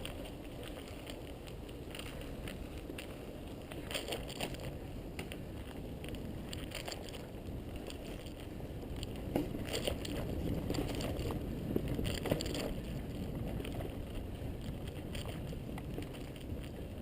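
Mountain bike rolling along a dirt singletrack trail: steady tyre and drivetrain noise with scattered clicks and rattles from the bike, a little louder from the middle onward.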